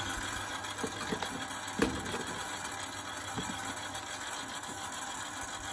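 A machine running steadily in the background, with a few faint knocks.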